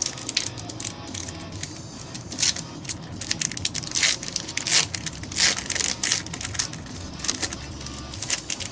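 A foil Pokémon booster pack wrapper crinkling and tearing as it is opened, a run of sharp crackles that come thickest through the middle.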